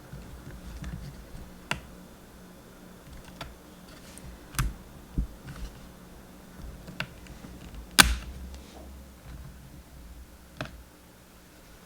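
Scattered sharp clicks and taps of a RAM stick and the open laptop being handled as the memory module is pushed into its slot, about six in all, the loudest about eight seconds in.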